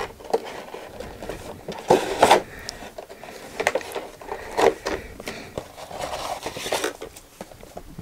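Clear plastic packaging tray scraping and crackling as it is slid out of a cardboard box and handled, with irregular clicks and rustles, the loudest about two seconds in.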